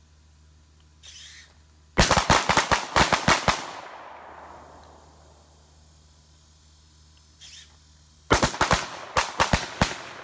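Two volleys of rapid pistol fire from several shooters at once, each volley a quick string of overlapping shots lasting about a second and a half, the first followed by a fading echo. The shots come as double taps on two targets per shooter.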